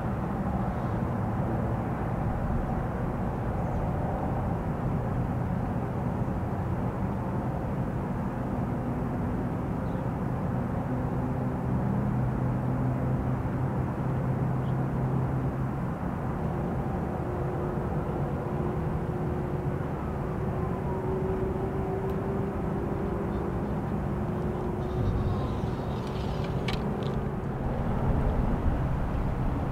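Steady low drone of distant engine noise, with faint whines gliding up and down midway through and a few small clicks near the end.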